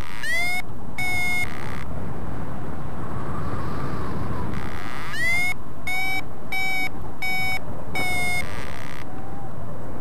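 Flymaster variometer beeping in flight: two beeps near the start, the first gliding up in pitch, then about five seconds in another upward-gliding beep followed by four short, evenly spaced beeps. The beeping is the vario's climb tone, the sign that the paraglider is rising in lift. Steady wind noise runs underneath.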